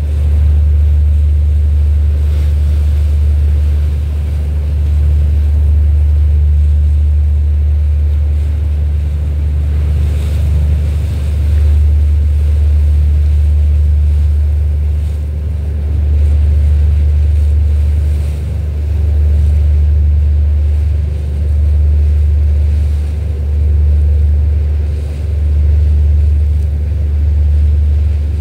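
Low, steady engine drone of the small boat the recording is made from, swelling and dipping every couple of seconds, with water washing past and wind on the microphone.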